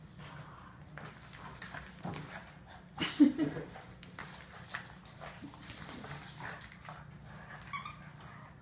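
Two Boston terriers playing tug of war with a toy, making dog play noises and scuffling on the rug, with the loudest burst about three seconds in.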